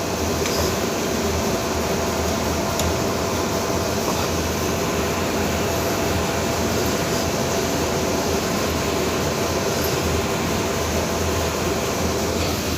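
Steady drone of running machinery: a constant low hum with a few faint steady tones above it, unchanging throughout.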